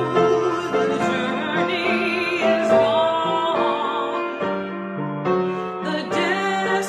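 Music: a singing voice with strong vibrato over piano accompaniment, a slow hymn-like song.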